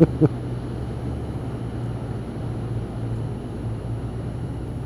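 Motorcycle engine running steadily under way, a low even hum with rushing wind and road noise over it.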